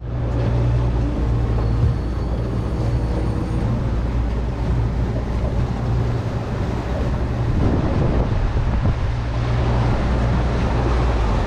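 A boat's motor running steadily under way, with wind buffeting the microphone; the motor's hum drops back for a moment about two-thirds of the way through, then picks up again.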